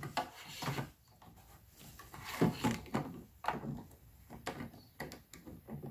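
Irregular handling noise: knocks, taps and rubbing as a plastic water tube and its fitting are worked into place under a small camper-van sink cabinet.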